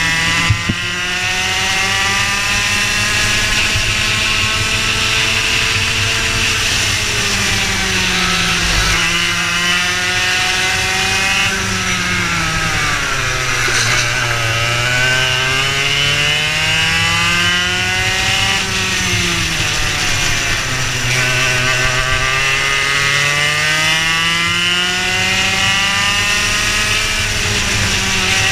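Go-kart engine heard onboard through a lap, its revs climbing on the straights and dropping into the corners, dipping lowest about fourteen seconds in before climbing again.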